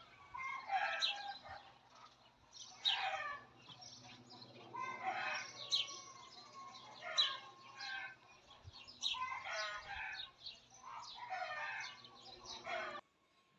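Domestic chickens calling, with a rooster crowing among them: a string of repeated calls that cuts off suddenly near the end.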